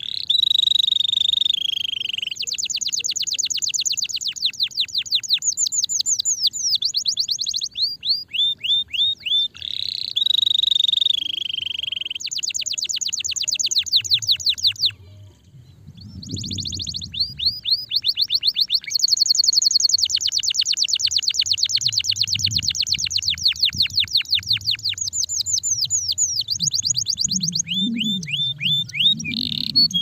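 Domestic canary singing: long fast trills and rolling, high-pitched phrases, almost without a break, with one short pause about halfway through.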